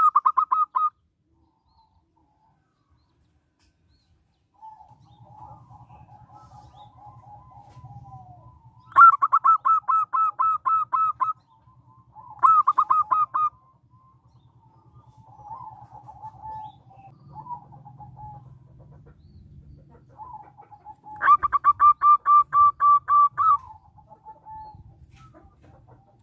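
Zebra dove (perkutut) giving rapid staccato cooing trills. The loud bouts last about two seconds each and come three times, with softer, lower-pitched runs of pulses between them.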